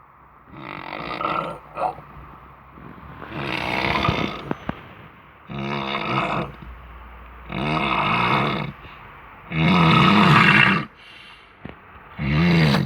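Loud snoring: a long snore about every two seconds, six in all.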